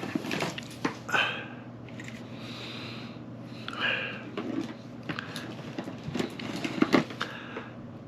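Small objects being handled and rummaged through: scattered clicks, taps and short rustles, with a few louder knocks around 1 and 7 seconds in.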